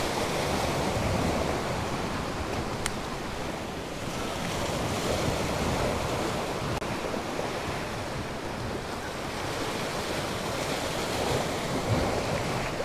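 Small waves washing and splashing against the rock blocks of a jetty, swelling and easing every few seconds, with wind buffeting the microphone. A sharp click about three seconds in and a short knock near the end.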